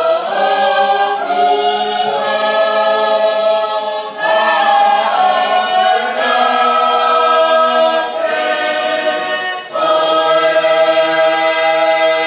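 A choir of many voices singing a Tongan church hymn unaccompanied, in long held chords with short breaks between phrases about 4 and 10 seconds in.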